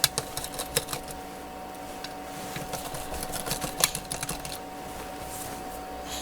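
Light, irregular clicks and taps of small plastic and metal laptop parts being handled during a repair, over a steady faint hum.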